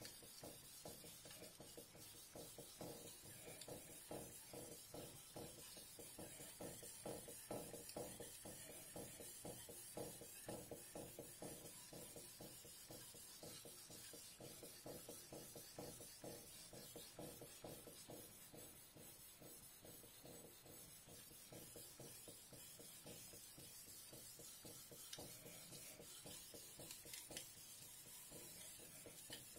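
Faint, rapid back-and-forth scraping strokes of a Shirogami #1 carbon-steel gyuto blade being hand-sharpened on a wet Suehiro combination #3000/#8000 water stone, working the tip area.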